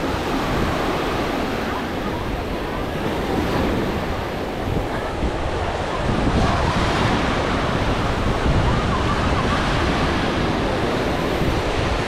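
Sea surf breaking and washing on the shore in big waves, a continuous rushing that swells in places, with wind rumbling on the microphone.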